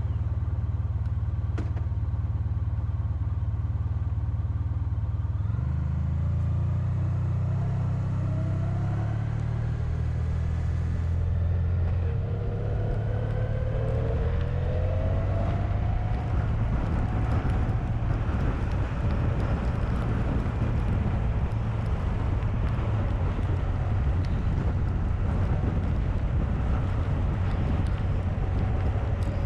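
Honda VFR1200X Crosstourer's V4 engine running steadily while riding, with wind and road noise. The engine note steps up about six seconds in and drops back about twelve seconds in, after which the wind and road noise grow louder.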